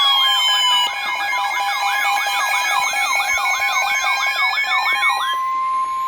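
Layered electronic siren tones: a fast yelp cycling about three times a second over steady tones, with a slow wail that falls and then rises. The yelp cuts off near the end, leaving a steady tone and the rising wail.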